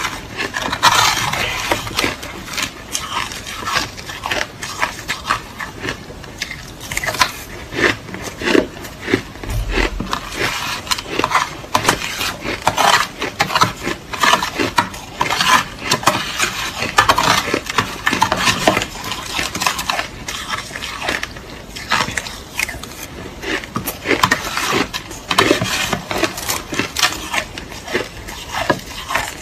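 Crushed ice being chewed with a steady run of crisp crunches, several a second, without pause.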